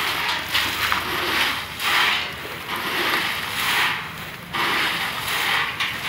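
Dry in-shell peanuts being scooped from a pile with a metal pan and poured into a jute sack, a rattling rustle that comes in repeated scoops about once a second.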